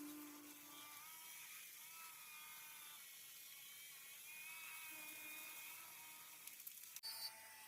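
Near silence with a faint, slightly wavering machine whine, and a brief crackle near the end.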